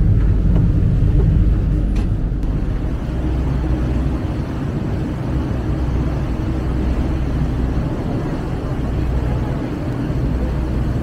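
A river tourist boat's engine running with a steady low rumble, mixed with a haze of wind and water noise on the open deck.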